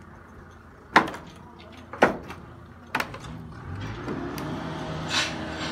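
Three sharp knocks about a second apart, then from about four seconds in a steady engine hum comes up.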